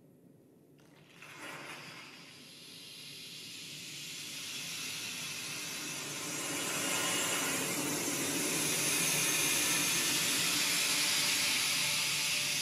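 Electroacoustic fixed-media music played back over loudspeakers: a sudden burst of noise about a second in, then a hissing noise texture that swells gradually and holds.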